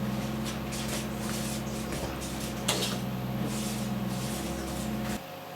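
Electric hand mixer running steadily in a bowl of muffin batter, with a few sharp knocks, switched off just before the end.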